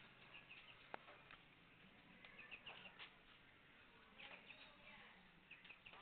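Faint high chirps of small birds, coming in short runs a few times over a quiet background, with a faint click about a second in.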